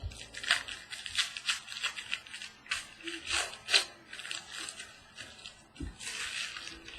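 Crinkling and rustling of a trading-card pack wrapper and cards being handled: an irregular run of short crackles and rustles.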